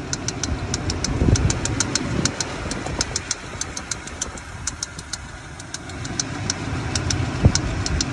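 Range Rover Sport's 4.4-litre V8 idling, with a rapid light ticking, several ticks a second, over a low engine rumble.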